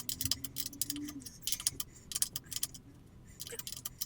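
Rapid, light metallic clicking and ticking from hand work on a motorcycle's chain drive, pausing briefly near the end.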